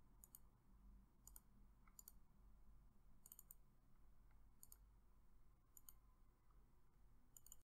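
Faint computer mouse clicks, about seven times at uneven intervals, several in quick pairs, over near silence.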